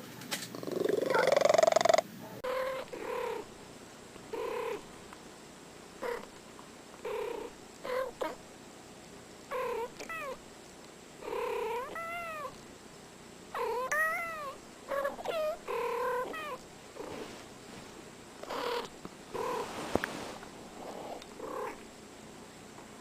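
A domestic cat making a run of short calls, roughly one a second, several rising then falling in pitch. It is preceded by a louder cat sound that cuts off abruptly about two seconds in.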